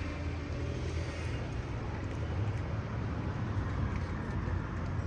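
Outdoor city street ambience: a steady low hum of traffic.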